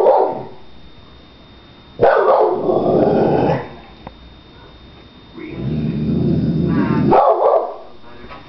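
Wheaten Terrier barking and growling in separate outbursts: one right at the start, a longer one about two seconds in, and a deeper, longer growl from about five and a half seconds in that breaks into a sharp bark near the end.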